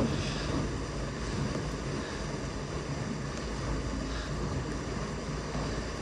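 Steady rushing of wind on the microphone outdoors, with a faint low hum underneath.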